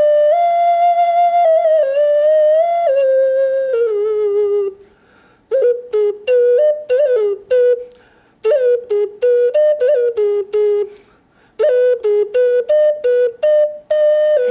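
Jaguar head ocarina played solo. First come a few long held notes stepping up and down in pitch. After a short break come quick, detached notes with small pitch bends, in short phrases broken by brief pauses.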